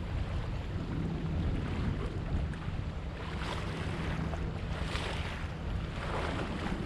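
Wind buffeting the microphone over water rushing along the hull of a sailboat under sail, the splash and hiss of the water swelling a few times.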